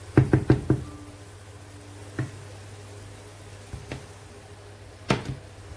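Cookware knocking as a frying pan is set on the stove: a quick run of four knocks, then single knocks about two and five seconds in.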